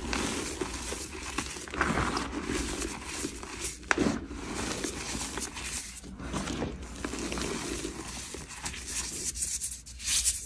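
Hands squeezing and crushing loose gym chalk mixed with glitter, a gritty crunching and crumbling in repeated squeezes with small sharp crackles.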